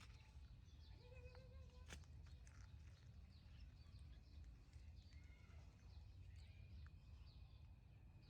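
Faint outdoor background: a steady low rumble with scattered small high chirps, a short held tone about a second in and a single sharp click near two seconds.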